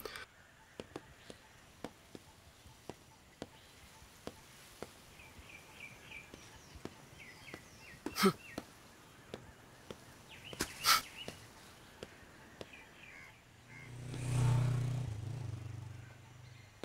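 Quiet street ambience with birds chirping and faint regular clicks about twice a second. Two sharp knocks come a few seconds apart near the middle. Near the end a low swelling whoosh rises and fades.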